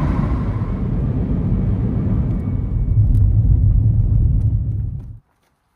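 Road and tyre noise of a car driving, heard from inside the cabin as a steady low rumble. It grows louder and heavier about three seconds in, then cuts off abruptly near the end.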